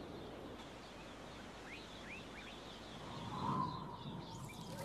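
Faint outdoor ambience with small birds chirping in the background: short, thin chirps that sweep up and down in pitch, scattered through. A brief, slightly louder sound swells and fades about three and a half seconds in.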